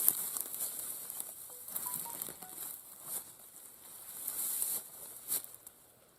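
Rustling and crinkling handling noise, irregular and fading toward the end, with a few faint short high tones about two seconds in.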